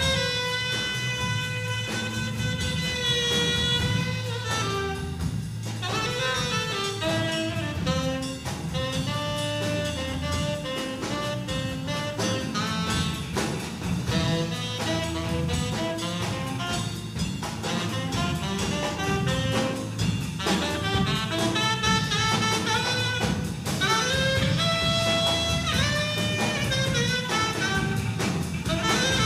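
Student jazz big band playing live: saxophone, trumpet and trombone sections over drum kit and electric bass. Long held horn chords alternate with shorter moving phrases.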